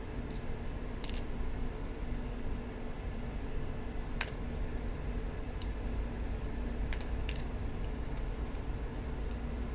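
Small metal lock parts being handled while a lock cylinder is taken apart: scattered light metallic clicks and clinks, about six in all and loudest about four seconds in, over a steady low background hum.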